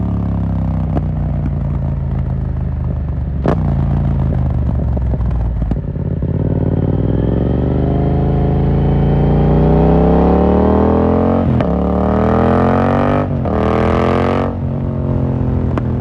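A 2018 Yamaha MT-07's 689 cc parallel-twin, breathing through an Akrapovic carbon full exhaust with no dB killer, heard from the rider's seat. It runs low and slowing at first, with two sharp clicks. About six seconds in it accelerates hard, its note rising steeply, with two quick upshift breaks near the end.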